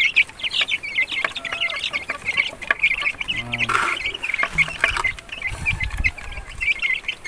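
A pen of game fowl chicks peeping rapidly and without a break in a dense high chorus, with a few lower clucks among them.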